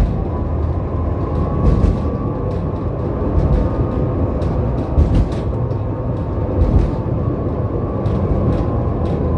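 Tram running along its track: a steady low rumble with faint steady tones and irregular short clicks and knocks.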